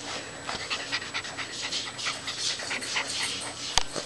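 Samoyed puppy panting right at the microphone in short, uneven breaths. A single sharp knock sounds near the end.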